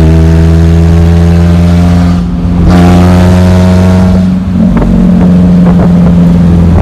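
Straight-piped 125 cc Tao Tao ATV engine running loud at high, steady revs with no muffler. It eases off briefly about two seconds in, then comes back up.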